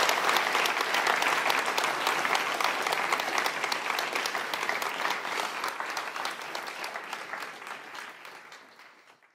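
Large seated audience applauding, a dense steady clapping that fades out over the last few seconds.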